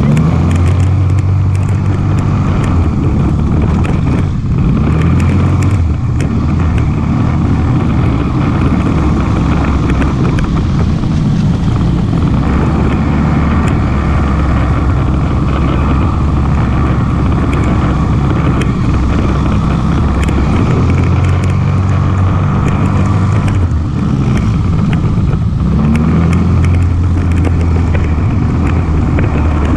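ATV engine running under way, its pitch rising and falling a little with the throttle, with scattered rattles and knocks.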